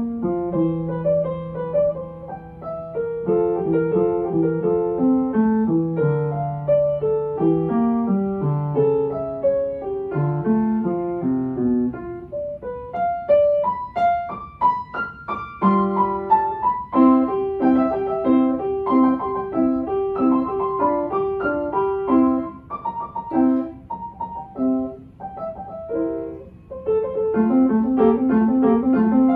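Upright piano played solo, one continuous piece. A quick run of notes comes about halfway through, followed by a passage of repeated chords.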